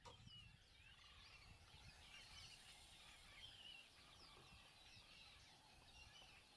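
Faint chorus of wild birds: many overlapping short chirps, whistles and warbling phrases, over a low rumble.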